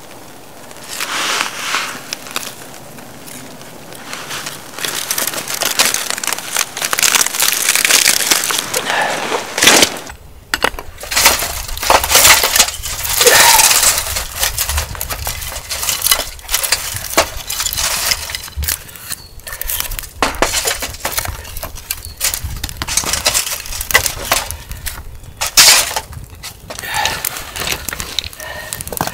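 A small wood fire being built: dry shavings and kindling crackling and snapping as they catch, with sticks and dry conifer twigs rustled and knocked as they are laid onto a metal fire stand. The sharp snaps come irregularly and many times.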